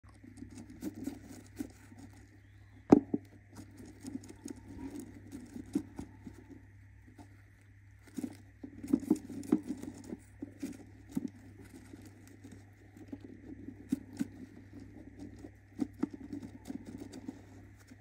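Budgerigar hen shuffling on her eggs in a wooden nest box: irregular scratching, rustling and claw taps on the wood and shredded paper bedding, with one sharp knock about three seconds in.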